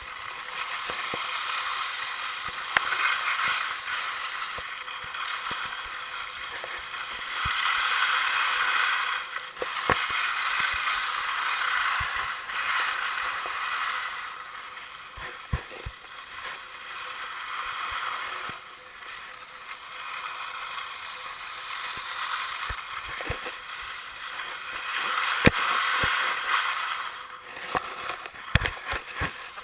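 Snow hissing and scraping under a rider sliding down a ski run, swelling and fading with each turn, with scattered knocks and bumps throughout and several sharp ones near the end.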